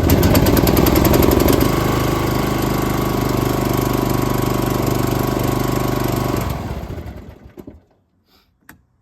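John Deere Z225 zero-turn mower engine running on choke, just started on a newly fitted ignition switch: louder for the first second or so, then running steadily. About six and a half seconds in it is shut off and winds down to a stop, followed by a small click.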